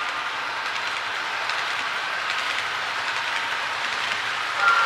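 HO scale model coal hopper cars rolling past on the track, a steady rolling rattle of small metal wheels on the rails. Just before the end a louder high steady tone comes in.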